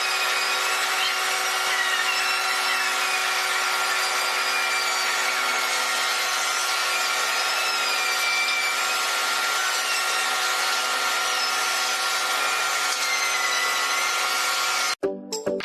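Electric power tool running steadily on wood: a dense hiss over a steady motor hum, with a higher whine that slowly wavers in pitch. It cuts off abruptly near the end and music starts.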